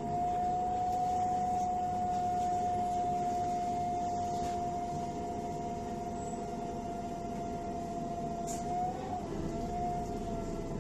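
Bus interior while driving: a steady high whine holds one pitch over low rumble and road noise, then wavers and dips briefly near the end.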